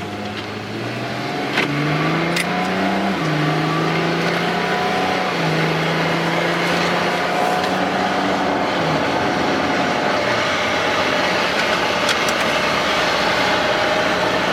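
A car accelerating through its gears. The engine pitch climbs, drops back at each shift and climbs again, then settles into steady road and wind noise at speed.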